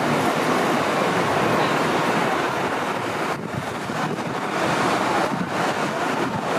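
City street ambience: a steady wash of traffic noise from passing cars, with wind buffeting the microphone.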